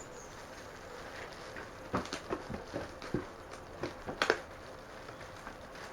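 Items being handled in an opened cardboard box: a run of rustles and light knocks that starts about two seconds in, with the loudest knock near the end.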